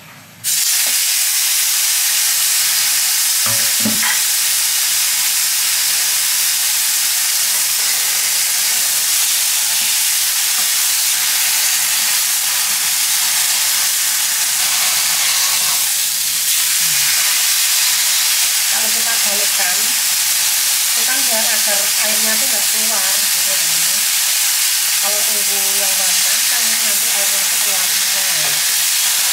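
Cornstarch-dusted beef steak frying in hot oil in a non-stick pan: a loud sizzle that starts suddenly as the meat goes in, then holds steady. There are a couple of knocks about four seconds in.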